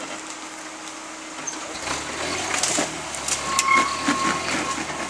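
Pickup truck engine crawling over rocks, quiet at first, then rising in revs about two seconds in, with sharp knocks and scrapes from the tires and chassis on rock. A brief high-pitched whine sounds in the middle of the louder stretch.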